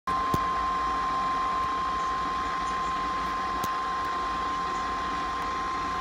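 Weather radio receiver sounding the NOAA Weather Radio 1050 Hz warning alert tone: one steady, unbroken tone over light static hiss. The tone signals that a warning broadcast, here a Special Marine Warning, is being sent.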